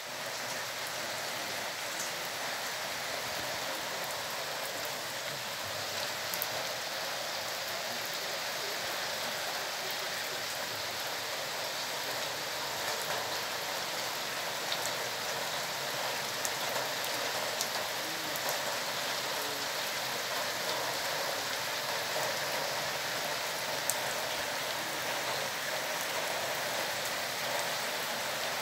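Heavy rain falling: a steady, even hiss with occasional sharp ticks of single drops.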